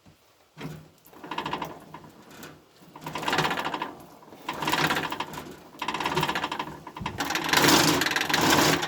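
Pedal-driven forge blower whirring in repeated surges, one with each push of the pedal, growing louder near the end as the fire is blown up.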